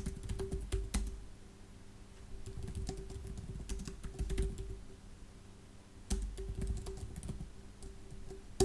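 Computer keyboard typing: three quick runs of keystrokes separated by short pauses.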